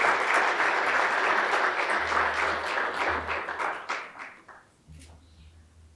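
Audience applauding a graduate crossing the stage, the clapping dying away about four and a half seconds in.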